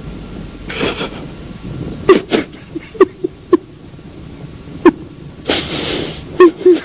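A man weeping: a string of about ten short, sharp sobs, with a long breath drawn in near the end.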